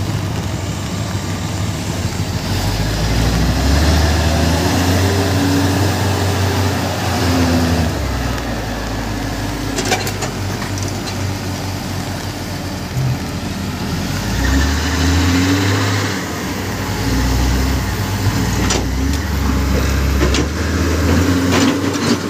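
Diesel engines of a Komatsu wheel loader and a hydraulic excavator running while they clear landslide mud, their engine note rising and falling again and again as they work under load. A few sharp knocks about ten seconds in and again near the end.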